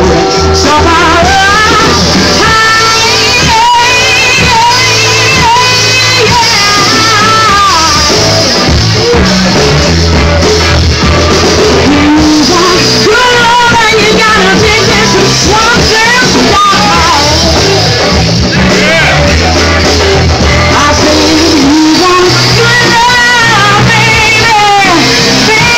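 Live blues band playing, with a singer's voice wavering over guitar and a steady bass line, loud throughout.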